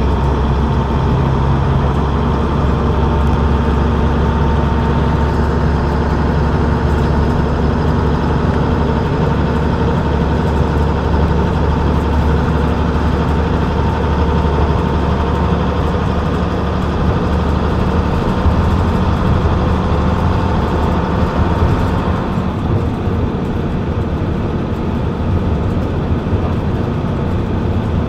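Diesel engine of a moving double-deck bus running steadily, heard from the back seat inside the bus, with tyre and road noise. Its note changes about three-quarters of the way through.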